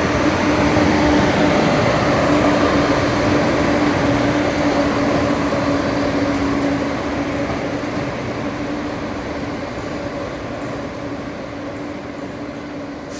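Diesel train engine running with a steady hum, growing gradually fainter from about seven seconds in.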